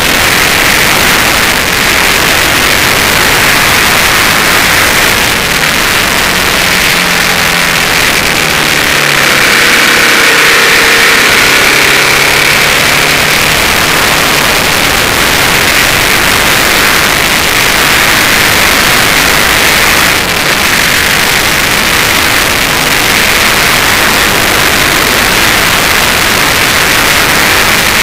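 Suzuki TL1000S's V-twin engine running hard at track speed, its pitch rising and falling, under heavy wind rush on the side-mounted camera.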